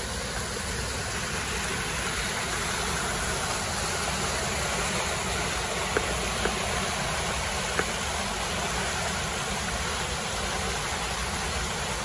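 Tanque Verde Creek running high after rain, its water rushing steadily over and between rocks, with a few short clicks near the middle.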